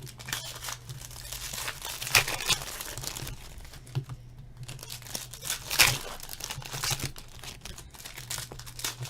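Hockey card pack wrappers crinkling and tearing as packs are ripped open and handled, with irregular crackles and a couple of sharper, louder rips about two and six seconds in.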